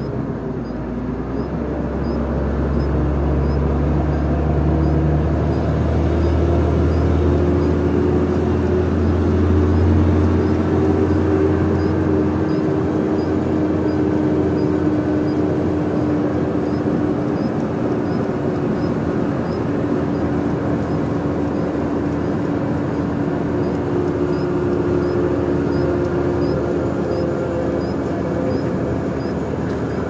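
Concrete mixer truck's diesel engine running and its tyres on the concrete road, heard from inside the cab as it drives along. The engine is a steady hum over road noise, with a deep drone that drops away about twelve seconds in.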